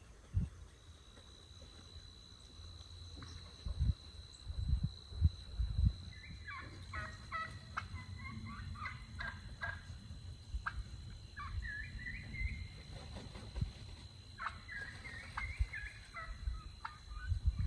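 A flock of wild turkeys calling in clusters of short, quick notes that come and go several times, over a steady high tone. Several low thumps, loudest in the first six seconds.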